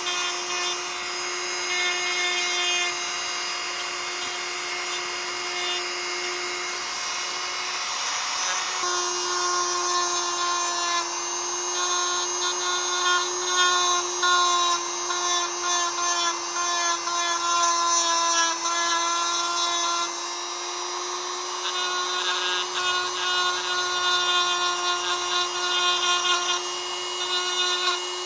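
Handheld corded rotary tool (Dremel-type) running at high speed with a steady whine, its bit grinding a small steel knife blade. The whine dips briefly about eight seconds in, then carries on.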